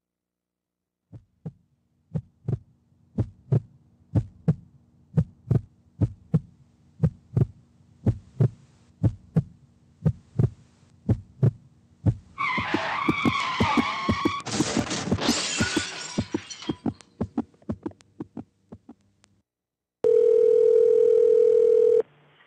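A heartbeat sound effect beats in steady double thumps. About halfway through, tyres screech and a crash follows while the heartbeat goes on underneath, then fades. Near the end a heart monitor's flatline gives a steady single tone for about two seconds.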